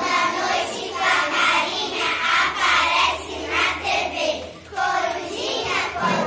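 A group of young children singing a song together as a choir, phrase after phrase, with a brief pause between phrases about two-thirds of the way through.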